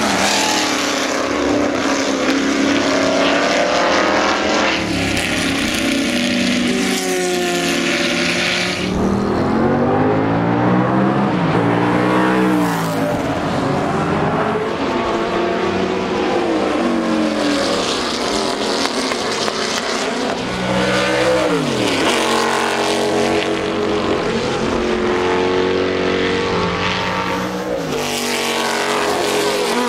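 Big racing V8 engines of historic sports cars, Lola T70 Mk3Bs with 5-litre Chevrolet V8s among them, passing at speed one after another. The engine note rises and falls through gear changes, and it changes suddenly a few times as one pass-by gives way to the next.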